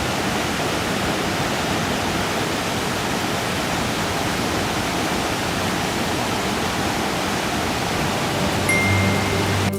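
Skradinski Buk waterfall cascading: a steady rush of falling water. Background music comes in near the end.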